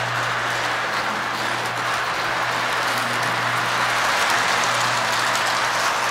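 Lionel toy trains running on their track: a steady rolling rumble of wheels with a steady low hum.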